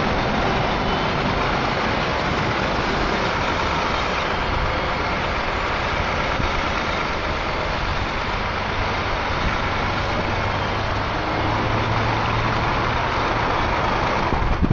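Semi-truck's diesel engine running at low revs as it slowly reverses a double 53-foot-trailer road train, under a steady rushing noise. The low engine hum grows a little louder after about eleven seconds.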